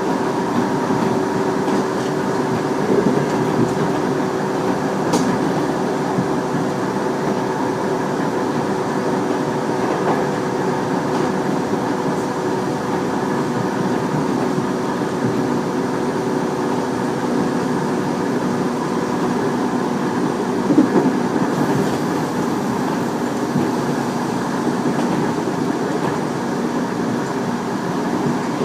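Tobu 30000 series electric train running at a steady speed, heard from inside the car: steady wheel-on-rail rumble with a constant hum and a few light clicks from the track. The uploader believes this train has permanent-magnet synchronous motors.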